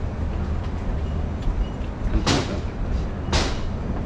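Tea factory machinery running with a steady low rumble, broken twice about a second apart by a short loud hiss.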